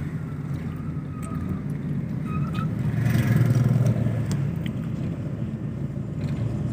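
Steady low rumble of a car driving at low speed, its engine and tyres heard from inside the cabin, growing louder for a moment about halfway through.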